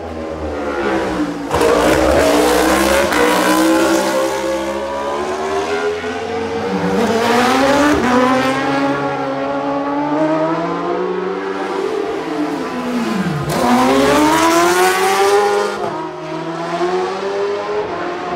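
Racing motorcycle engine at high revs, approaching from out of sight. Its pitch dips and climbs back up twice, about seven and thirteen seconds in.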